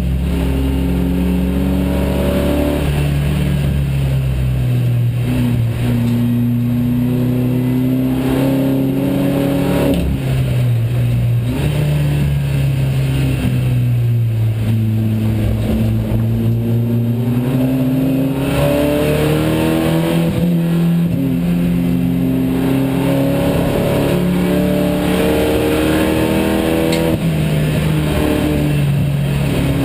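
SEAT Leon Supercopa race car's turbocharged four-cylinder engine heard from inside the stripped cabin at racing speed, its note climbing and falling again and again as it pulls through the gears and slows for corners, over steady road and tyre noise.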